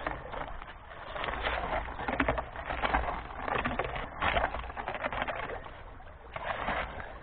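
Irregular splashing and gravel scraping as a magnet stick is swept through the water and over the stony bed of a shallow creek, in uneven bursts, over a low rumble.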